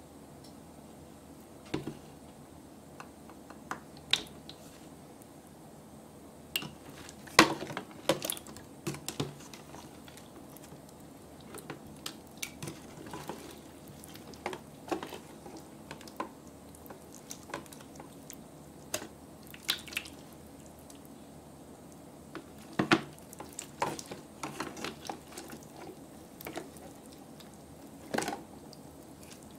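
Hands squishing and kneading soft, runny slime on a plastic tray: irregular wet clicks and pops, the loudest about seven seconds in and again near twenty-three seconds.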